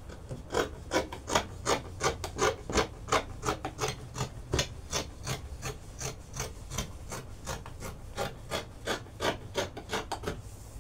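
Dressmaking shears snipping through folded layers of adire fabric on a table, a steady run of short cuts at about three a second.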